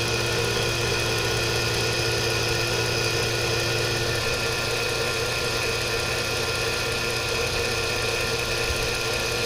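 Single-stage rotary vane vacuum pump running steadily, evacuating a car's A/C system through the gauge set. The low hum eases slightly about four seconds in.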